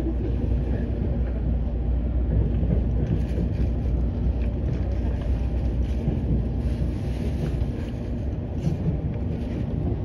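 JR West 683 series electric limited express train running, heard from inside the passenger cabin: a steady low rumble of wheels on rails.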